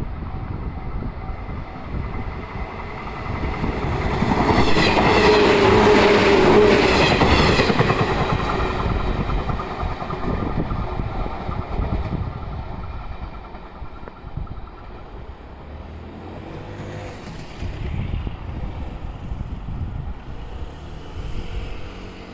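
A 111 series electric train passes over a level crossing. It grows loud about four seconds in, stays at its loudest for several seconds with steady ringing tones over the running noise, then slowly fades away.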